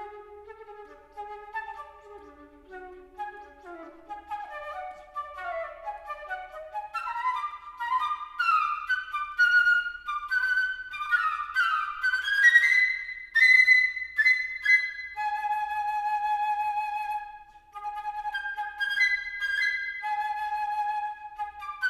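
Solo flute playing an unaccompanied concert piece: quick notes in the lower register, then fast runs that climb into the high register, settling into longer held notes with vibrato after a short break.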